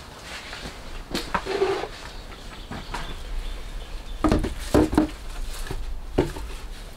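Peeled birch poles knocking against one another and against the log frame as they are laid down, a series of hollow wooden clonks, loudest a little past the middle.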